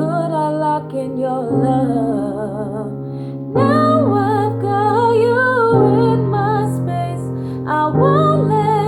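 Female voice singing long, wavering held notes, without clear words, over sustained piano chords that change every second or two.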